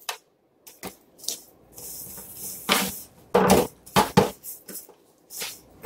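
Hands rubbing seasoning into raw Cornish hens in a disposable aluminium foil pan: irregular short squishes, pats and scrapes of skin against the thin foil pan.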